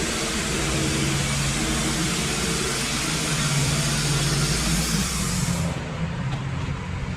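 Wood-Mizer LT15 band sawmill running, its engine humming steadily while the band blade cuts through a pine log with a strong high hiss. The hiss fades out about six seconds in, leaving the engine running.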